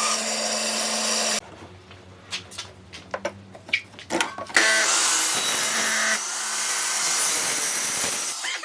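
An electric power tool runs against wood and stops about a second and a half in. A few seconds of light knocks and taps of wood being handled follow, then the tool runs again for about four seconds.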